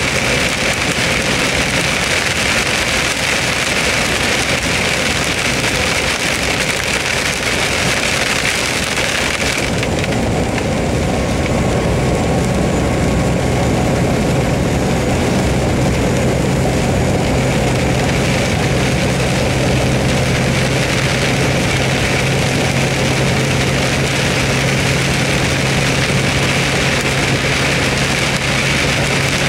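Heavy rain pounding on a moving vehicle's windshield and roof, heard from inside the cab, with tyre and road noise. About ten seconds in the rain eases suddenly and a steady low engine hum comes through; the downpour builds again near the end.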